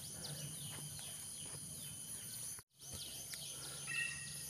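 Outdoor ambience: rapid, repeated high chirping calls over a steady low hum, cut off by a brief dropout about halfway through. A short two-note call sounds near the end.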